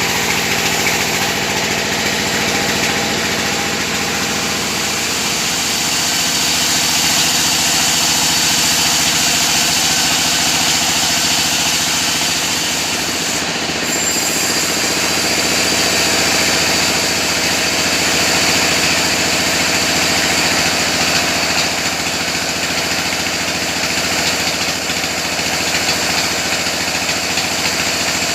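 Chainsaw engine running steadily at speed, its note holding with only small shifts in pitch.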